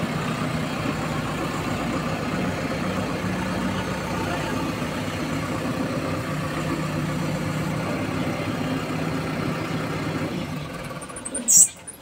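JCB 4DX backhoe loader's diesel engine running steadily at low revs with a low hum. Near the end the engine sound drops away and a brief high squeak is heard.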